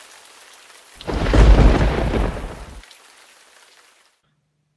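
Thunderstorm sound effect: steady rain with a loud clap of thunder about a second in that rumbles for nearly two seconds, then the rain fades out near the end.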